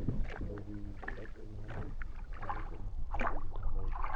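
Rowboat being rowed, the oars dipping and splashing in the water about every one and a half seconds over a steady low rumble.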